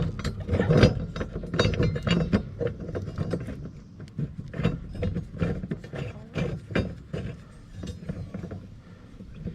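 Irregular metallic clicks, clinks and knocks of hand tools working on a mower blade bolt while the middle blade of a zero-turn mower deck is being refitted.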